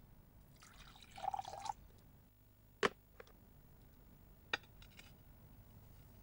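Faint tableware sounds: a short splashy pour about a second in, then a few sharp clinks of a cup or glass set down on a table.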